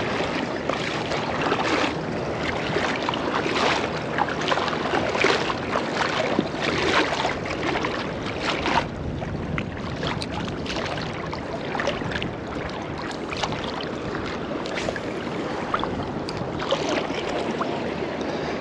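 Choppy shallow saltwater sloshing and lapping around a wading angler, irregular and unbroken, with wind buffeting the microphone.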